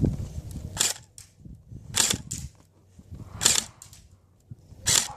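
Airsoft gun firing single shots, sharp cracks about a second or so apart, five in all.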